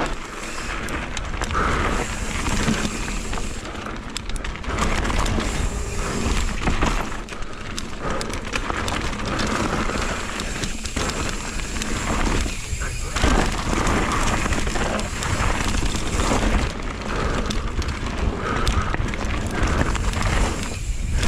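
Mountain bike ridden fast down a dirt trail: continuous rush of wind on the microphone, tyres rumbling over the dirt, and the bike clattering and rattling over bumps, with repeated knocks all through.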